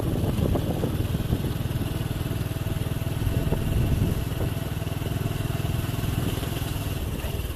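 Small motorcycle engine running at a steady speed as it rides along, a low even drone with a fast regular pulse.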